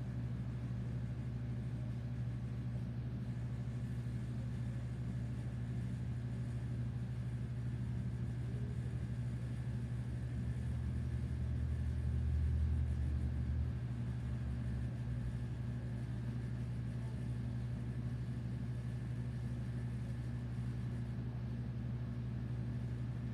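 Amana air conditioner compressor running with a loud, steady low hum, swelling louder for a few seconds about ten seconds in and then settling back.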